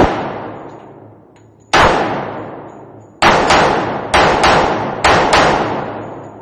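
Semi-automatic pistol shots with a long echo after each: a single shot, then three quick double-taps, seven shots in all.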